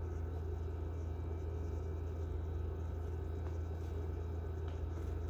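Steady low-pitched hum of room background noise, unchanging throughout, with no speech.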